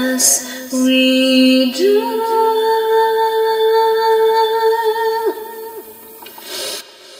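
Closing bars of a home-recorded song: a woman's voice sings long held notes, sliding up into the last one, which is held for about three seconds. The music then fades out near the end.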